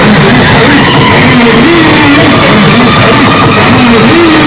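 Hardcore techno DJ set played very loud over a club sound system, with a wavering melody line over a dense, distorted mix.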